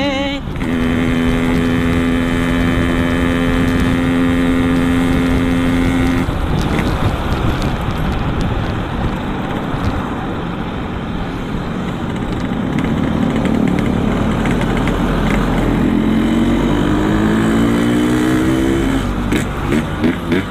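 Yamaha RX-King's two-stroke single-cylinder engine through a Boban C33 aftermarket exhaust, on the move. It holds a steady note for about six seconds, then rushing wind and road noise takes over, then the engine note climbs again under acceleration and breaks into uneven pulses near the end.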